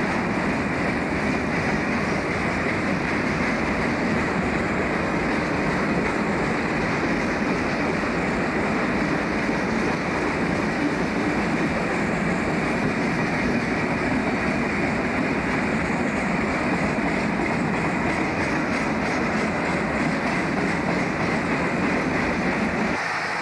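A long train of coal hopper wagons rolling past close by: a steady, loud rumble of wheels on the rails that keeps on without a break.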